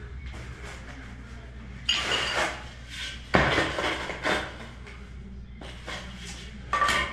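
Knocks and scrapes of hands and tools on a shower drain and its sand-cement mortar bed as the drain is tapped down and levelled, in three short bursts, the last ending in a short metallic clink.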